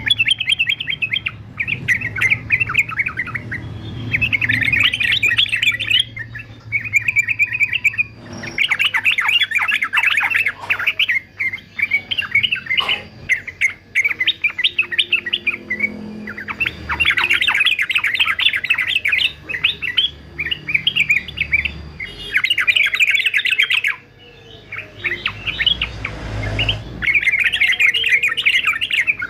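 Male yellow-vented bulbul singing in fast chattering runs of quick notes, each run a few seconds long, broken by short pauses.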